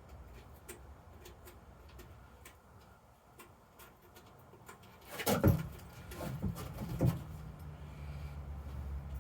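Faint light clicks and taps of parts being handled on a motorcycle. About five seconds in comes a burst of louder knocks and clatter, with a few more knocks a second or two later. Then a steady low hum sets in.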